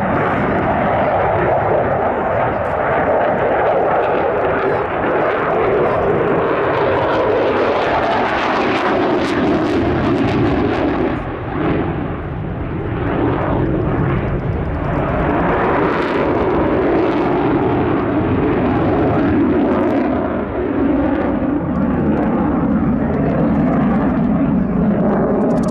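Eurofighter Typhoon FGR4 fast jet's twin Eurojet EJ200 turbofans in reheat, a loud continuous jet roar whose pitch slowly falls, with a brief dip in level about halfway through.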